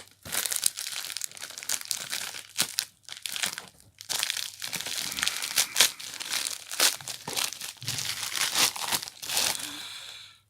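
Parcel packaging crinkling and tearing as it is unwrapped by hand: a dense, irregular crackle with short pauses about three and four and a half seconds in.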